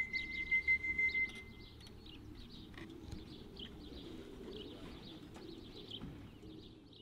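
Small birds chirping and twittering, with a steady high tone for about the first two seconds.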